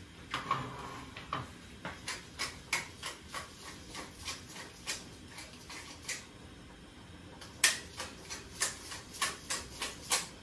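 Wooden pepper mill grinding black peppercorns: a string of sharp clicks, a few a second, with a pause of about a second and a half just past the middle.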